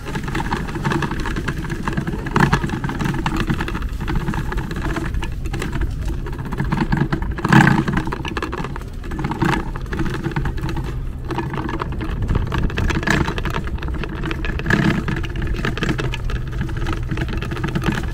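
Ride noise of a bike-share bicycle rolling over a brick-paver path: a steady hum from the tyres and drivetrain with occasional rattling jolts, the loudest about seven and a half seconds in.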